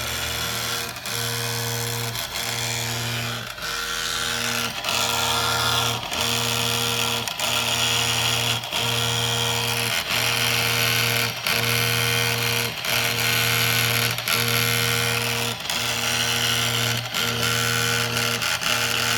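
CNC engraving machine working a granite slab. Its motors hum steadily with brief breaks about every 1.3 s, and a buzzing scratch of the tool on the stone grows stronger a few seconds in.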